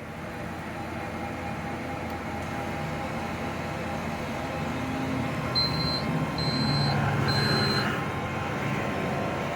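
Steady radio receiver static and hum, with three short high electronic beeps a little over halfway through.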